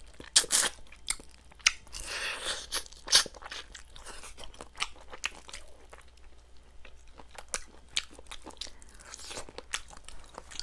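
Close-up eating sounds: chewing and biting into chicken, with many irregular clicks and crunches and a short noisy stretch about two seconds in.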